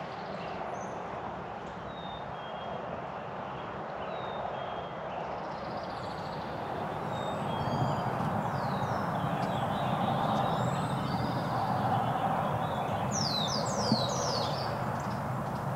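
Wild songbirds chirping and singing over a steady low rushing outdoor background, the calls coming thicker as quick falling whistles near the end. A single sharp click sounds about 14 seconds in.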